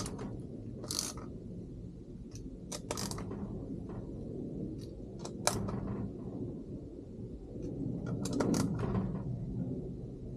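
Small parts and hand tools being handled at a workbench: scattered sharp clicks and short scrapes, loudest about eight to nine seconds in, over a steady low rumble.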